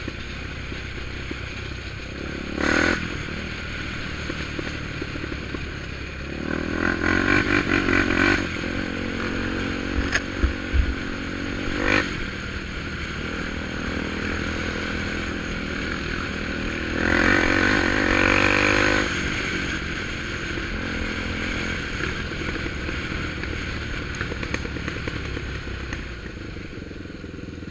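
ATV engine running steadily, with a few short revs: one about three seconds in, a longer one around seven to eight seconds, a brief one near twelve seconds and another around eighteen seconds. A few low knocks come between the second and third revs.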